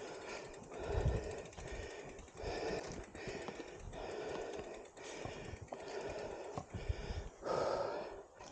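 Heavy, rhythmic breathing from an exhausted mountain biker, about one breath every second and a half and strongest near the end, over scattered knocks and thumps of footsteps and the bike on rough ground.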